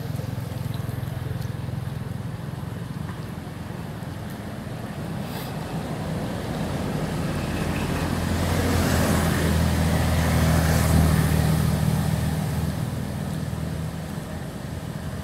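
A motor vehicle passing: a low engine hum that grows louder over several seconds, peaks past the middle, then fades back down.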